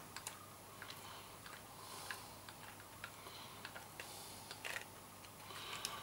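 Faint, irregular small clicks and taps from hands handling the opened plastic case of a joystick and its parts.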